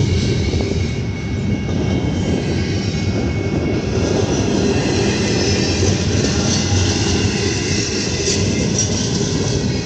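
Double-stack intermodal container train's well cars rolling past: a steady, loud rumble and rattle of steel wheels on the rails.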